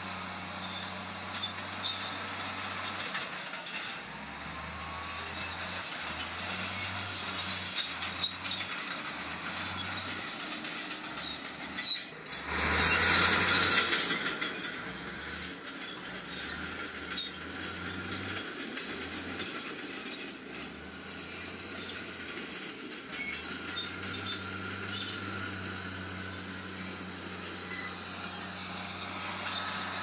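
Heavy diesel earthmoving machinery at work: the engine runs throughout, its low note shifting in steps. About twelve seconds in comes a loud rushing noise lasting about a second and a half.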